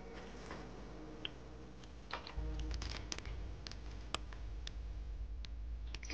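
Scattered light clicks and taps of a metal spoon and peanuts against a porcelain bowl as peanuts are sprinkled onto a coconut-milk dessert, over a low rumble that comes in about two seconds in.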